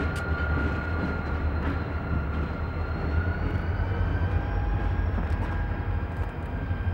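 Two CSX diesel freight locomotives pulling a train away, their engines giving a steady low rumble. Over it runs a thin high whine that drifts slightly up in pitch around the middle.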